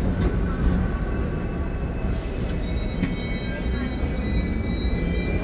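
Hong Kong double-deck electric tram running with a steady low rumble, its wheels squealing on the rails in thin high tones that shift higher about halfway through.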